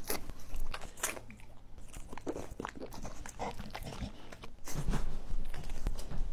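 Dogs wolfing down hot dogs: a wet slorp, then greedy chewing and gulping in irregular smacks and clicks.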